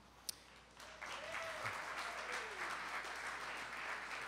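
Audience applauding, starting about a second in and carrying on steadily.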